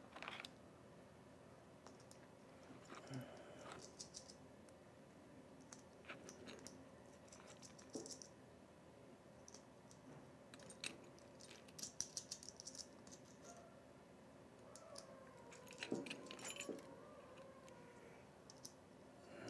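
Faint, scattered metallic clicks and clinks of brass jumper bars and nuts being handled and fitted onto the threaded terminal studs of a compressor terminal plate.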